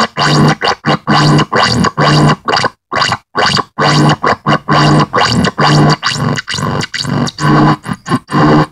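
Electronic noise music: dense noise chopped into rapid, stuttering bursts, two or three a second, with a low steady tone under many of them. It drops out briefly about three seconds in.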